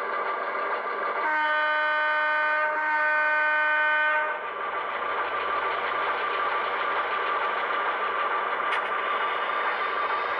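Sound decoder in an HO scale model diesel locomotive: a horn sounds for about three seconds, over the steady sound of the diesel engine running as the locomotive moves.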